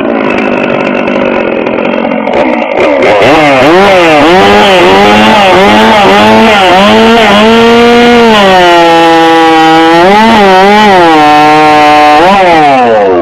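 Two-stroke chainsaw run hard through a log: the engine revs high, then gets louder from about three seconds in as it cuts. Its pitch dips and recovers again and again as the chain loads up in the wood, and it winds down near the end as the throttle is released.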